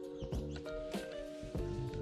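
Background music with held, stepwise-changing notes, with a few light clicks mixed in.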